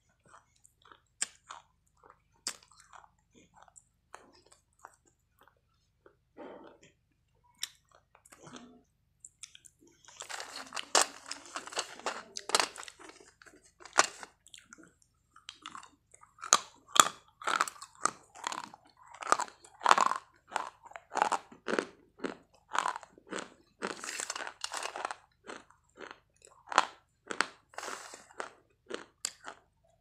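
Close-up crunching and chewing of hard white chalk-like sticks. Scattered single crunches for about the first ten seconds, then steady, dense crunchy chewing to the end.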